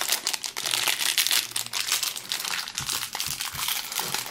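Crinkly metallic foil wrapper being crumpled and pulled open by hand, giving a continuous dense crackling.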